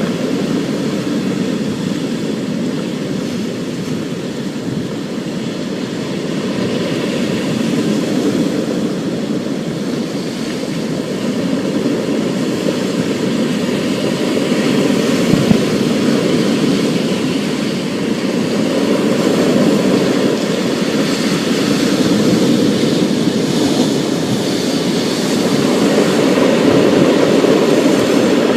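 Thunderstorm: steady rain with a continuous low rumble that swells and eases every few seconds, and a brief thump about halfway through.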